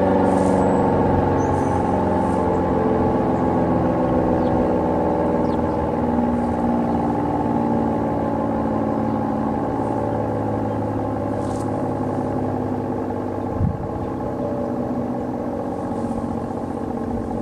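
A.C.A. P-10 outdoor warning siren, reverse wired, sounding a sustained wail made of a stack of steady tones that slowly gets quieter. There is a short thump about two-thirds of the way through.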